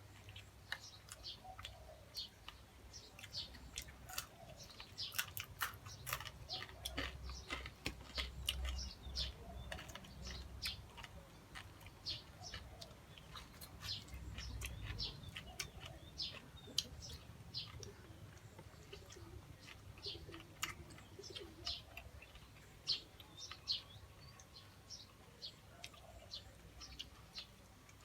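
Small birds chirping in many quick, short calls, with a dove cooing now and then. Scattered sharp clicks are mixed in, and a low rumble comes twice.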